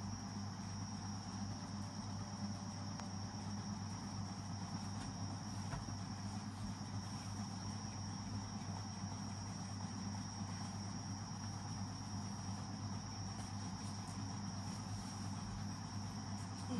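Steady background hum with a continuous high-pitched whine, unchanging throughout.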